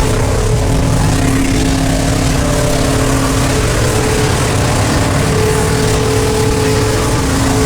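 V8 car engine held at steady high revs in a burnout pit, its pitch wavering only slightly, over a hiss of noise that is consistent with spinning tyres.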